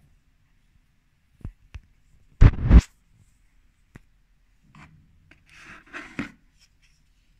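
Handling noises around a folding knife in its cardboard box: a couple of light clicks, then a loud scraping rub lasting under half a second about two and a half seconds in. After another single click comes a soft rustle ending in a click as a hand lifts the knife.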